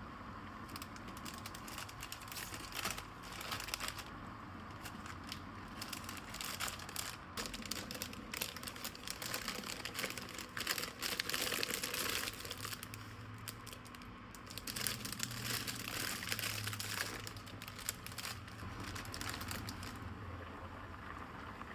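Bread knife sawing through a loaf of bread, a scratchy crackling crunch in several spells of a few seconds each.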